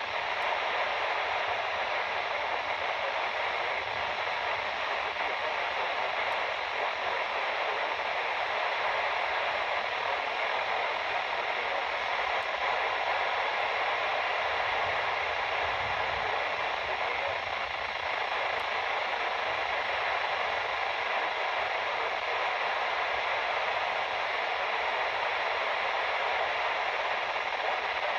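Steady radio static: an even hiss from a receiver with no broadcast coming through.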